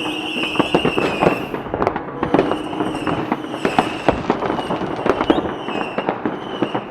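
Fireworks display: a dense, fast run of bangs and crackling reports with no pause, over a steady high-pitched tone.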